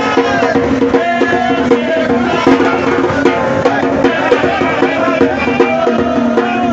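Upbeat music with a singing voice over sustained instrument notes and a steady drum beat.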